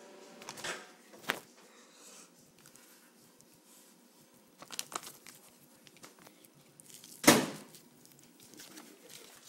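Handling noise: a few scattered knocks and rustles against the phone, the loudest about seven seconds in, with quiet room tone between them.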